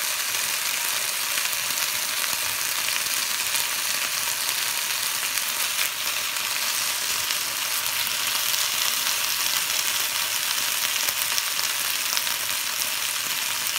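Chicken breast fillets frying in a non-stick pan, a steady sizzling hiss with small crackles.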